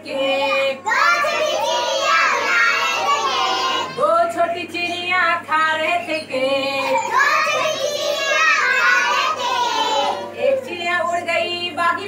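A group of young children singing a Hindi nursery rhyme together in unison.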